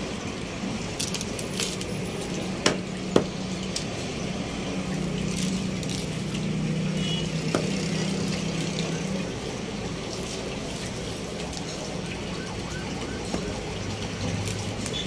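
A large curved knife scraping the scales off a fish on a wooden chopping block, with a few sharp knocks of the blade in the first few seconds. A low steady hum runs under it for the first half.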